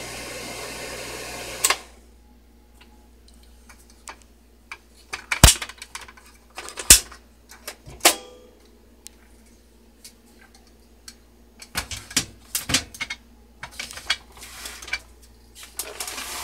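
Kodak Carousel 5600 slide projector's cooling fan running steadily, then switched off with a click just under two seconds in. After that come sharp plastic clicks and knocks as the slide tray is handled and lifted off the projector.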